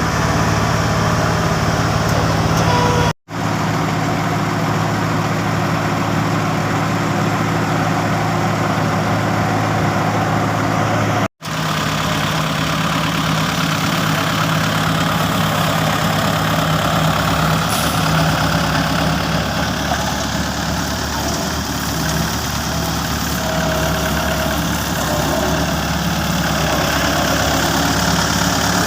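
Diesel engine of road-paving machinery running steadily, with a constant engine note and broad mechanical noise. The sound cuts out abruptly for an instant twice, around three and eleven seconds in.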